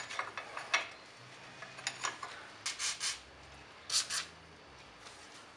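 Several short hissing bursts from an aerosol can of WD-40-type penetrating spray, aimed at a seized suspension strut bolt to free it, with light metallic clicks and taps in between.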